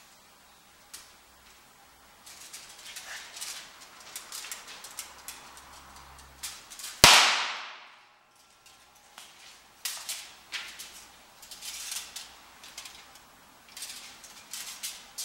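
Small electrolytic capacitor wired with reversed polarity across a charged capacitor bank, crackling and hissing for several seconds as it overloads, then bursting with a loud bang about seven seconds in that trails off over about a second. Scattered crackles and ticks follow.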